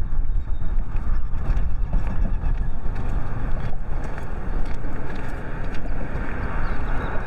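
Wind buffeting the phone's microphone: a steady, churning low rumble with a fainter rushing hiss above it.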